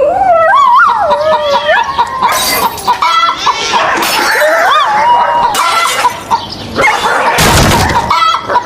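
Novelty alarm ringtone made of a jumble of sound effects: stepping electronic beeps and wobbling, sliding tones, broken by sudden crashing noises, the biggest near the end.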